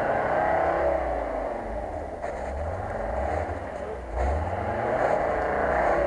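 UAZ-469 off-roader's engine revving in surges under load as it drives through deep snow, its pitch rising and falling: a strong surge at the start, a dip in the middle, and another rise about four seconds in.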